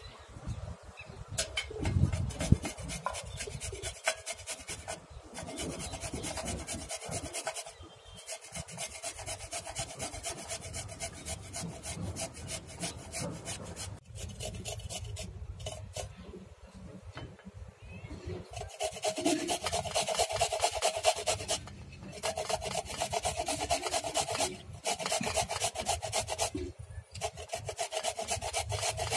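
Fresh turmeric root being rasped by hand in quick, repeated scraping strokes, stopping briefly several times.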